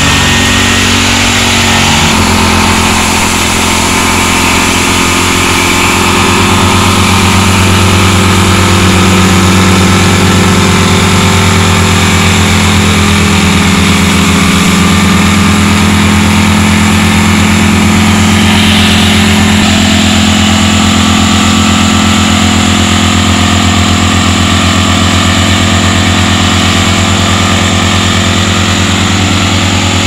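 Vibratory plate compactor running steadily, its small engine and vibrating plate tamping wet soil and gravel. The engine note shifts about two seconds in, then holds steady.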